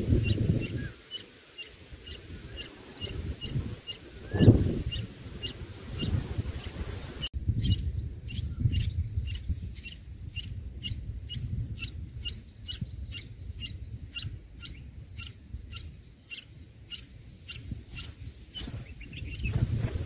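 Red-whiskered bulbul nestlings begging with short, high chirps repeated evenly, about three a second, quickening to about four a second partway through. A low rumble runs underneath, with one loud thump about four seconds in.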